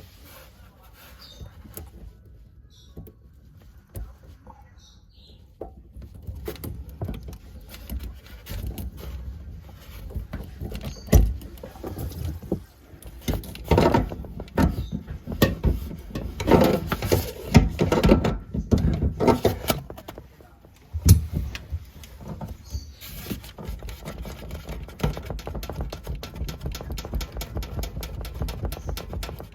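Hand work on a kitchen faucet: irregular knocks, clicks and clatter of tools and fittings, with a few sharper knocks in the middle and a run of rapid clicking near the end.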